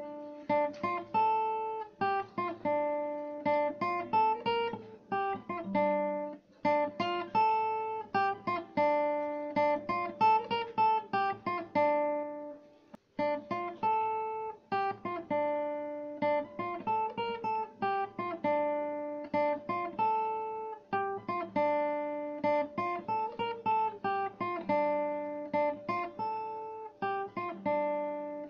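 Background music: an acoustic guitar playing a repeating fingerpicked pattern, with a brief break about halfway through.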